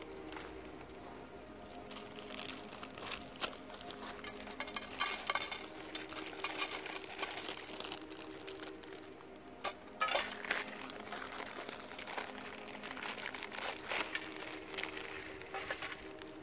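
Crinkling and light clicks and knocks of things being handled, over a faint steady hum.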